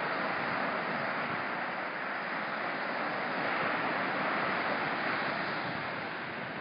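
Small ocean surf breaking and washing up a sandy beach: a steady hiss that slowly swells and eases, with some wind on the microphone.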